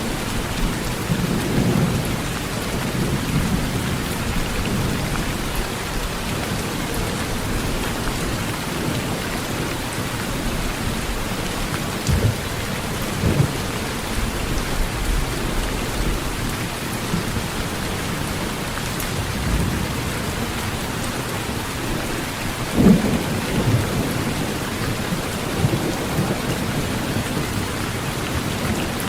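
Heavy rain falling steadily on a tin roof, with low thunder rumbles coming and going; the strongest comes about three-quarters of the way through.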